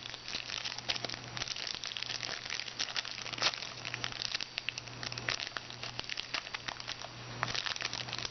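A trading-card pack wrapper crinkling and crackling as it is torn open and handled, in many short irregular crackles, over a steady low electrical hum.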